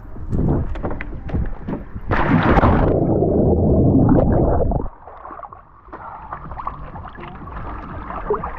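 A person jumping into a pool: a sudden sharp splash about two seconds in, followed by a few seconds of loud water churning that cuts off abruptly.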